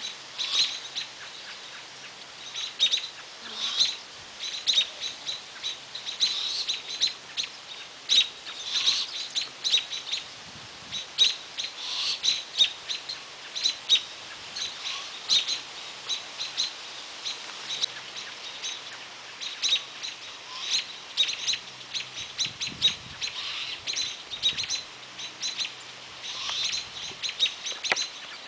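Small bird chirping: short, high calls repeated quickly, about two or three a second, with brief pauses.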